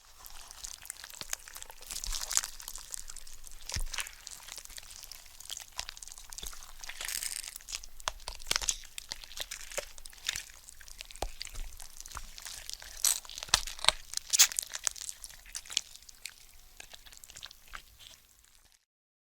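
Cartoon gore sound effect: a long stretch of wet crunching, crackling and tearing, with sharp cracks scattered through it, as of flesh and bone being mangled. It cuts off abruptly near the end.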